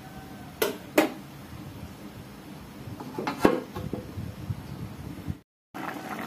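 Metal cooking utensils knocking against a metal karai (wok): two sharp knocks within the first second, then a cluster of clatters about three seconds in, over a steady low hiss. The sound cuts out completely for a moment near the end.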